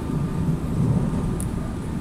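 Train running along the line, heard from inside the front of the car: a steady low rumble of wheels on rails.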